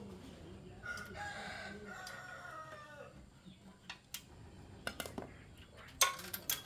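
A rooster crowing once, a call of about two seconds that drops in pitch at its end. Several sharp metallic clicks and clinks follow, the loudest near the end.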